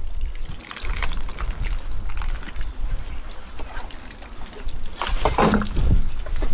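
Wind rumbling on the microphone, with wet splashing and trickling water sounds and a louder burst about five seconds in.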